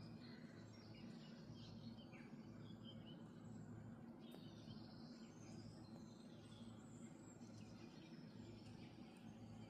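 Faint birdsong in a garden after rain: scattered short chirps and calls over a steady low background hum.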